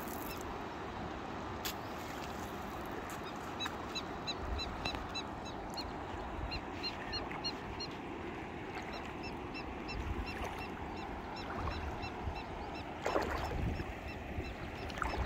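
Steady rush of a shallow river, with wind buffeting the microphone now and then, and a bird calling in quick runs of short, high notes through the middle.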